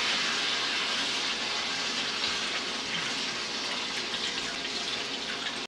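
Kitchen faucet running steadily onto a whole raw chicken held under it in the sink, rinsing off the excess brine.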